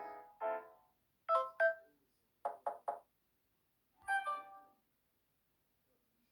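Samsung Galaxy J5 (2016) phone tones playing one after another: short electronic chime phrases, each dying away, with silences between. A two-chord figure is followed by two notes, three quick notes, and then a single chime about four seconds in.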